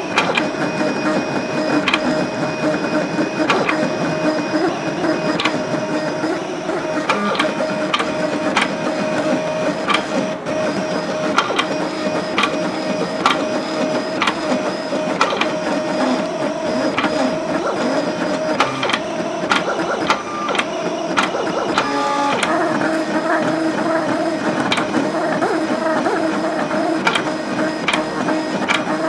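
CT630 vinyl cutter plotting on butcher paper: its stepper motors whine steadily as the carriage and paper move back and forth, with frequent sharp clicks.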